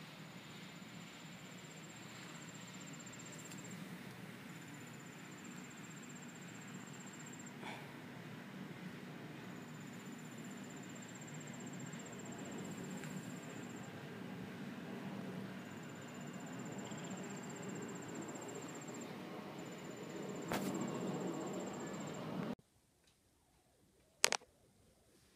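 Outdoor insects trilling in high, even bursts of two to three seconds, five of them, over a low steady hum. Near the end the background drops away and there is a single sharp click.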